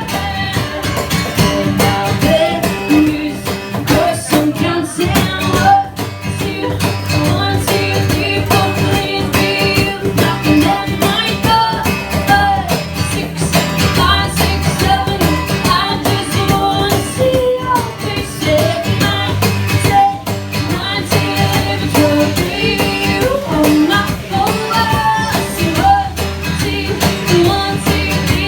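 Live band music: female voices singing over guitar, with a steady beat.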